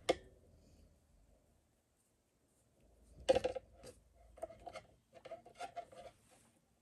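Hands handling a crocheted yarn flower and a yarn-wrapped wire stem: soft rubbing and rustling of yarn, with a sharper scrape a little over three seconds in.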